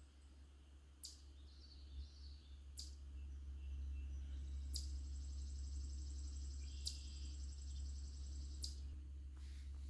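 Birds calling: a short sharp chirp repeated about every two seconds over a thin high trill. A steady low rumble runs underneath, growing louder about three seconds in.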